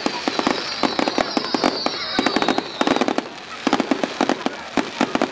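Fireworks going off in rapid volleys of bangs and crackles, with a high, slightly falling whistle over them for the first three seconds. A brief lull comes just after three seconds, then the bangs start again.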